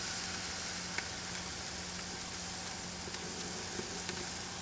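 Bone-in ribeye steak sizzling on a hot gas barbecue grill, its fat and oil dripping onto the burner flames: a steady hiss with a few small pops.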